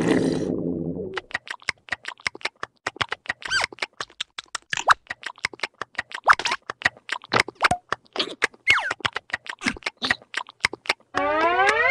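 Cartoon sound effects: a ringing clang fading out over the first second, then a long, rapid run of short squeaky clicks and chirps, some sliding in pitch, and near the end a loud swooping vocal cry.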